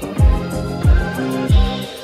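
Music with a steady slow beat: a deep bass drum that drops in pitch hits three times, about two-thirds of a second apart, under held keyboard-like chords.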